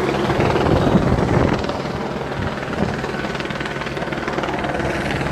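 Steady mechanical drone of a running engine with a fast, regular beat. Irregular low rumbling noise on the microphone in the first second and a half.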